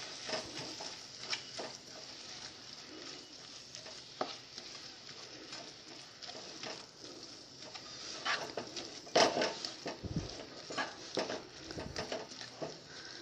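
Sliced onions and ginger-garlic paste sizzling in hot coconut oil in a non-stick pan while being stirred, with scattered scrapes and taps of the stirring spoon that come thicker about eight to ten seconds in.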